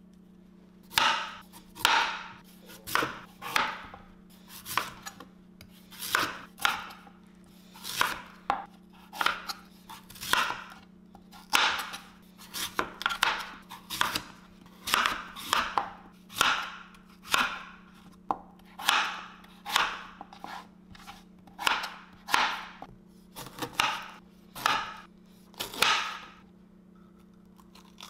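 Chef's knife chopping a raw sweet potato into chunks on an Epicurean cutting board: some two dozen sharp chops, about one a second, stopping a couple of seconds before the end.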